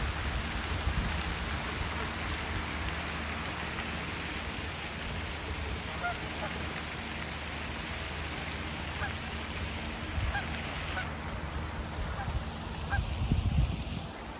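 Steady outdoor background noise with a low hum, and a few faint short bird calls scattered through it.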